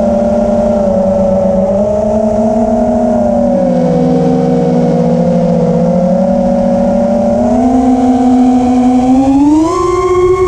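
Brushless motors of a 5-inch FPV quadcopter (EMAX ECO II 2306 1900KV on 4S, three-blade props), heard from the onboard camera as a steady multi-tone whine. Its pitch wavers with the throttle, then climbs sharply near the end as the throttle is pushed up.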